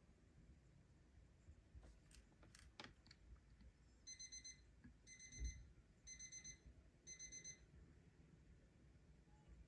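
Remote-control alarm clock's buzzer sounding its alarm: four short bursts of rapid high beeps, about one burst every three-quarters of a second, starting about four seconds in. A few sharp clicks come before it and a dull thump falls between the bursts.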